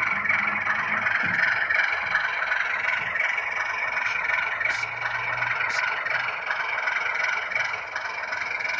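Bowser Baldwin AS-616 model diesel locomotive running along the track: a steady hum, with two brief high hisses around the middle.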